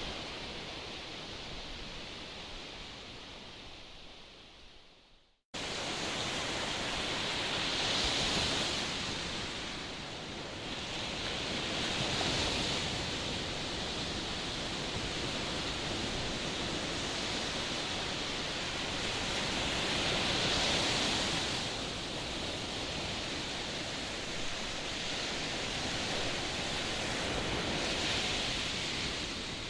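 Rushing noise of strong wind and surf by the sea, swelling and easing every few seconds. It fades out to silence about five seconds in, then cuts straight back in at full level.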